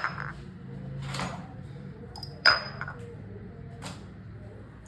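Glass cupping cups clinking: a few sharp clinks, each with a brief high ring, the loudest about two and a half seconds in.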